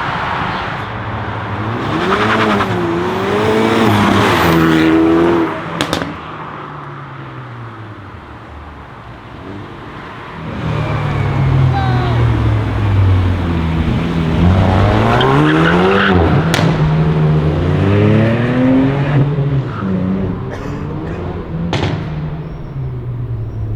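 Hyundai i30 N's turbocharged 2.0-litre four-cylinder accelerating hard, its engine note climbing and dropping through gear changes in two runs, with sharp exhaust pops about six seconds in and twice more later on.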